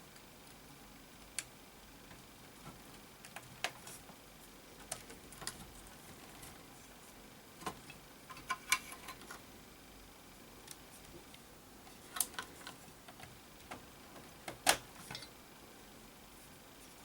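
Irregular light clicks and taps from small parts and tools being handled during electronics reassembly, with a few sharper clicks around the middle and near the end.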